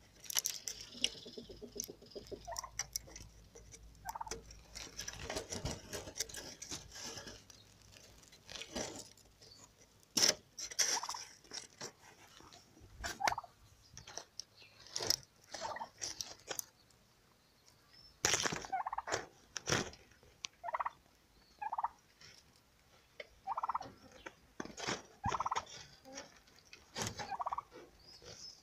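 Domestic turkey making short, separate calls every second or few, among scattered clicks and rustles.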